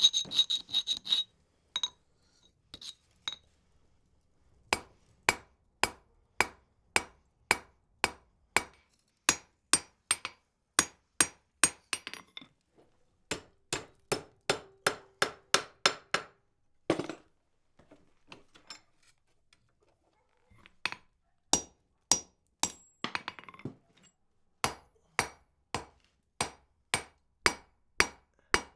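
Blacksmith's hand hammer forging wrought iron on an anvil: a quick ringing flurry of taps at the start, then steady blows about two a second. The blows break off for a few seconds partway through, then resume.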